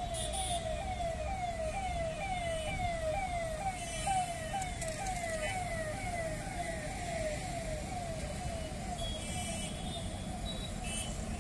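Electronic siren sounding in a quick repeating pattern of falling tones, two or three a second, over steady road traffic; it fades away near the end.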